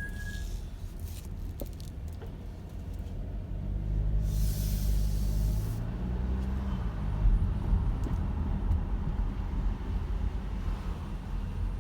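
Car brakes heard over the low rumble of the moving car: a brief high-pitched squeal right at the start, and about four seconds in a hissing noise lasting about a second and a half. These are the brake noises that come every time the brakes are applied.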